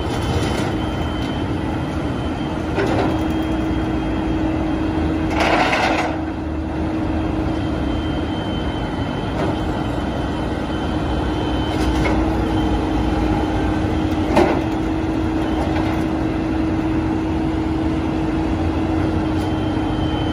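Flatbed tow truck running steadily with a constant whine. A short rush of noise comes about five seconds in, and there are a few sharp knocks, the loudest about fourteen seconds in.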